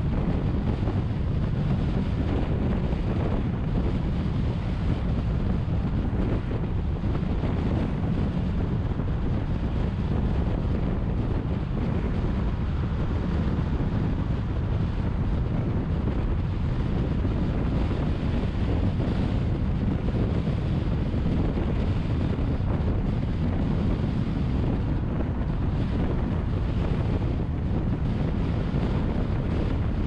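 Steady road and wind noise of a car driving at expressway speed. The tyre rumble is low and even, with wind buffeting the microphone.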